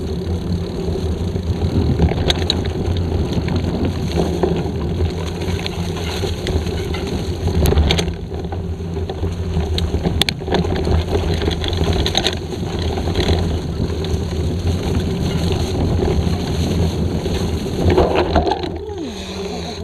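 Mountain bike riding fast over a dirt and grass forest trail, heard from a camera mounted on the rider: steady noise of wind on the microphone and knobby tyres rolling over the ground, with scattered sharp knocks and rattles from the bike over bumps.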